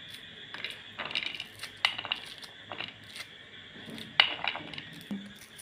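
Metal kitchen utensils clinking: a string of sharp clinks with a brief ring, the loudest about two seconds in and again about four seconds in.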